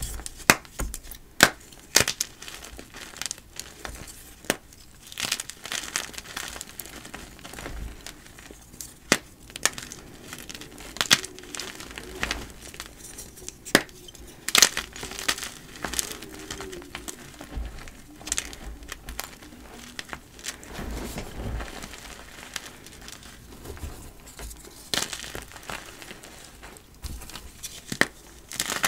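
Blocks of dyed gym chalk being crushed, with irregular dry crunches and crackles over a powdery crumbling rustle.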